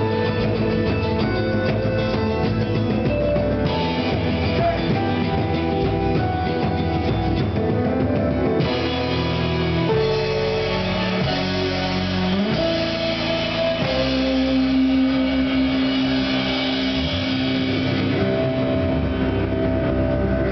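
A live rock band playing together: electric guitar, keyboard, bass guitar and drum kit, with steady cymbals and shifting bass notes.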